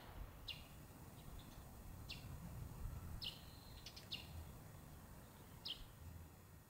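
Songbirds chirping sparsely: about half a dozen short, high calls spread a second or more apart, one with a brief held note, over a faint low outdoor rumble.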